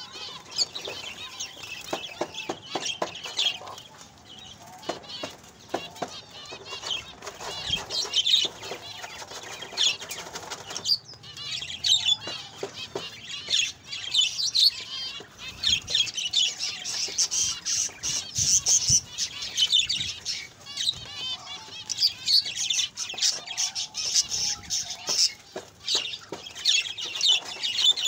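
Zebra finches calling in a busy chatter of short, high beeping calls, which grow busier about halfway through. Many short clicks and wing flutters come through under the calls.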